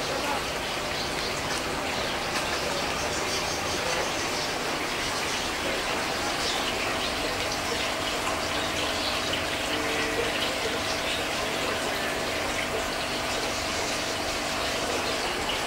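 Aquarium air stones bubbling and water running in the tanks: a steady, even hiss of moving water. A faint steady hum joins in about six seconds in.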